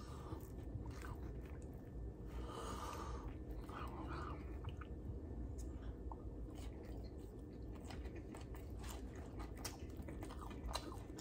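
A person chewing food close to the microphone, with many small wet mouth clicks scattered throughout.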